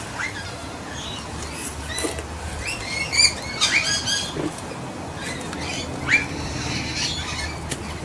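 Australian magpies calling loudly close by: many short squawks and warbled notes, some sweeping up in pitch, coming in bunches, thickest about three to four seconds in and again near six seconds.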